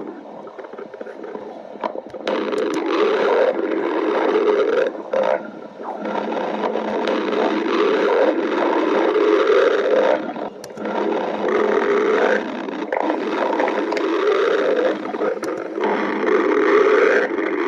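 A person's hungry stomach growling loudly in long growls, nearly continuous from about two seconds in, with short breaks every few seconds.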